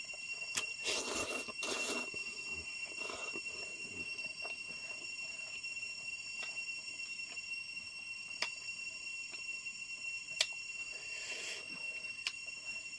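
Close-up eating sounds from hand-eaten noodles and rice: wet mouth clicks and chewing, with two louder slurps about one and two seconds in. A steady high-pitched ringing tone sounds underneath throughout.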